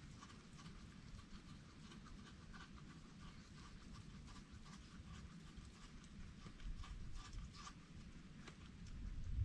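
Faint, irregular small clicks and taps of a wild animal eating, picking up and chewing food crumbs, over a low rumble that grows louder near the end.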